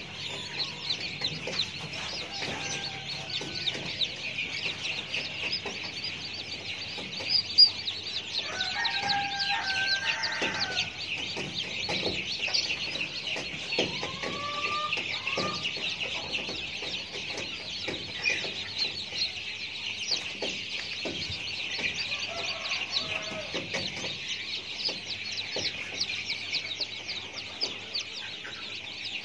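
Chickens clucking, with a few separate pitched calls, over a steady, dense, high-pitched chirring.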